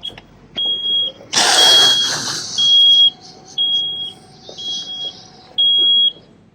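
A high electronic beep repeating about once a second, six times in all, each beep about half a second long. A loud burst of noise cuts across the second and third beeps.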